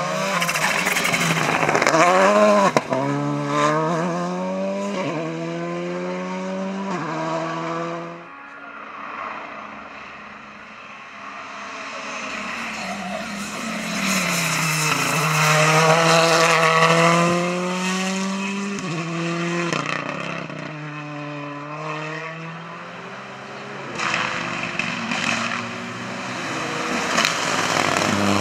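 Rally cars at full throttle on a stage, one after another: each engine note climbs and drops back in steps as it shifts up through the gears. The first car accelerates through several gear changes, the sound dips for a few seconds around a third of the way in, then a second car builds to the loudest point about halfway through, and a third car comes in near the end.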